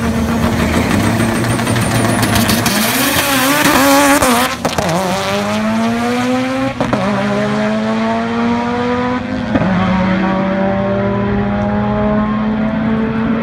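Turbocharged 2004 Mitsubishi Lancer Evolution VIII's 2.0-litre 4G63 four-cylinder with a Precision 6266 turbo, accelerating hard on a drag strip quarter-mile pass. The engine pitch climbs through each gear, with upshifts about four and a half, seven and nine and a half seconds in.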